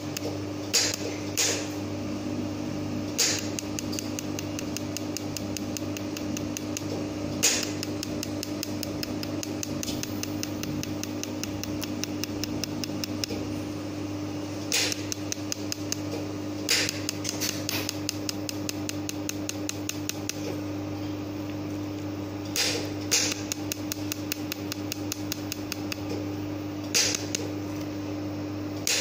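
Pulsed laser mold welder firing as filler wire is fed into a mold's seam: a rapid, regular train of sharp ticks, several a second, with an occasional louder snap, over the machine's steady hum.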